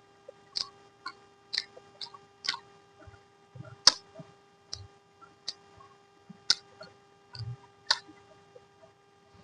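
Close-miked eating sounds: sharp, wet mouth smacks and clicks of chewing, about a dozen at uneven intervals, over a faint steady hum.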